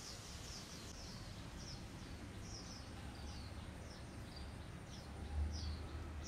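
Small birds chirping: short, high, downward chirps repeating every half second or so over a steady low rumble, with a brief low thump about five seconds in.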